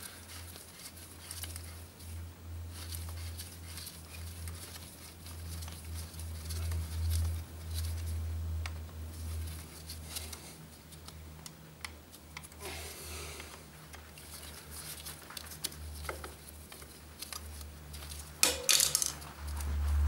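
Faint clicks and light scrapes of a 6 mm hex key and gloved hands working the pad-retaining pins on a Suzuki DR650's rear brake caliper, over a steady low hum. A brief, louder scrape or rustle comes near the end.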